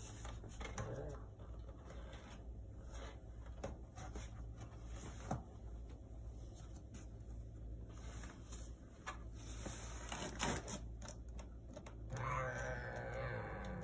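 Cats shifting on and around a cardboard cat box: scattered small clicks and scratchy rustles over a steady low hum, then a drawn-out pitched cat call starting about twelve seconds in.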